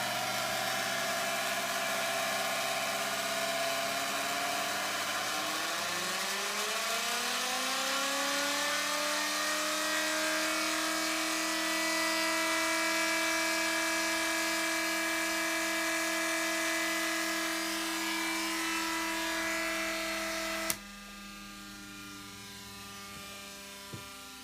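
Two battery-driven Bedini pulse-motor rotors running with their pulsed coils: a loud buzzing whine over a hiss, rising in pitch for several seconds as a rotor speeds up and then holding steady. It cuts off suddenly with a click about 20 seconds in, leaving a low steady hum.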